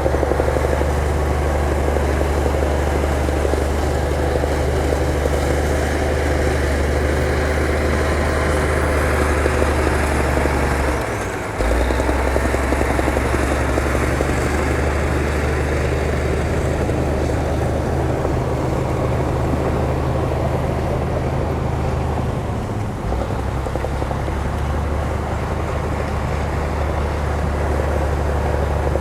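Heavy bulldozer diesel engine running steadily under load, with a deep low hum. The engine note drops briefly about eleven seconds in, and again more gently around twenty-three seconds in.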